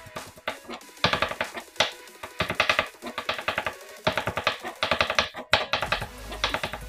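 Chef's knife chopping shallots on a plastic cutting board in quick runs of sharp strokes, several a second with short pauses, over background music.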